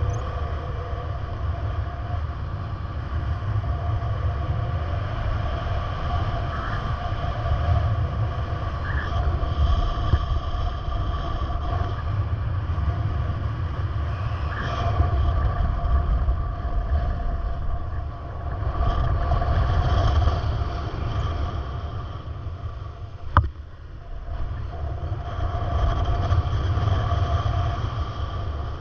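A vehicle running with a steady low rumble and faint steady whines above it, and a single sharp click late on.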